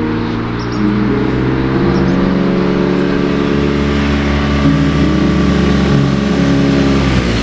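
BMW R nineT Scrambler's boxer-twin engine pulling under steady acceleration, its note rising slowly, then dropping sharply near the end as at a gear change.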